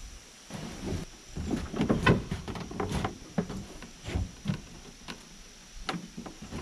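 A large truck hood being set down and shoved into place on a wooden flatbed: a run of irregular clunks and scrapes for a couple of seconds, then a few separate knocks as it is nudged into position.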